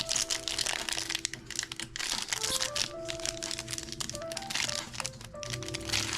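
A trading-card pack's wrapper crinkling as it is handled and opened, over background music with a stepping melody.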